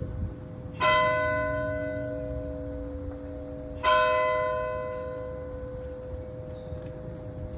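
A large bell tolling: struck twice about three seconds apart, each stroke ringing on and fading slowly.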